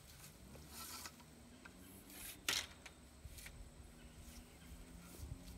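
Long telescoping metal fruit-picking pole being handled and extended, its sections sliding and knocking with faint scrapes and a few clicks, the sharpest about two and a half seconds in.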